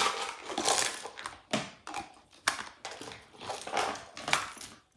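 Hands rummaging through small plastic craft supplies: a string of short rustles with a few sharp clicks as plastic items and containers are picked up and set down.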